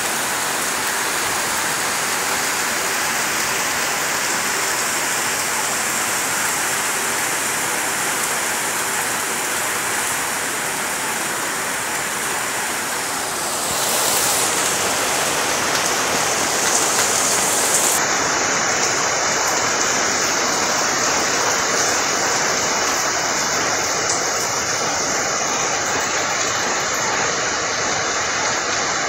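Heavy monsoon rain pouring steadily onto banana leaves and palm trees, an even hiss that grows a little louder about 14 seconds in.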